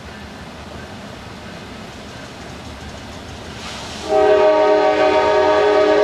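Diesel freight locomotive's multi-chime air horn sounding one long blast that starts suddenly about four seconds in, several steady notes together, over steady background noise of the approaching train.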